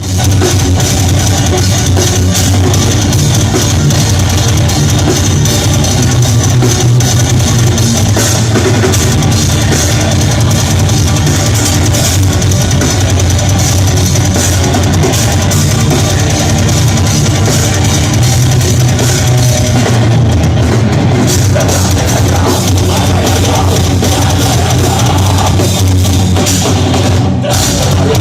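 Death metal band playing live: loud, dense full-band music with a drum kit and guitars that briefly thins out about a second before the end.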